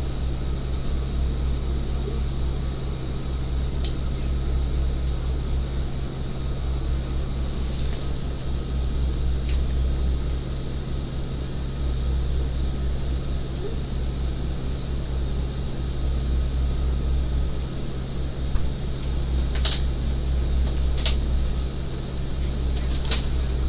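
Steady low drone of an ambulance's running engine and ventilation, heard inside the patient compartment, with a few light clicks near the end.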